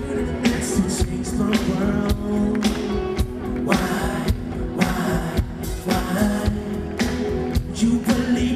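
Live band playing amplified pop-rock, with a steady beat of drum hits under bass and electric guitar, recorded from the audience at a concert.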